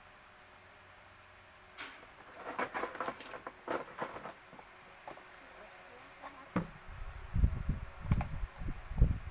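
Small hard parts being handled: a few seconds of clicking and rattling, then a run of louder, dull thuds and bumps near the end.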